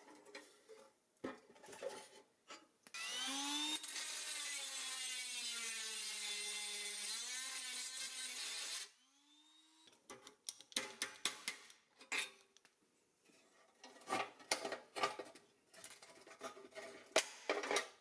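Power drill boring out a rivet in a toy truck's pressed-steel frame, the motor running for about six seconds with its pitch dipping and recovering under load. Afterwards, scattered light metal clinks and taps as the loosened parts are handled.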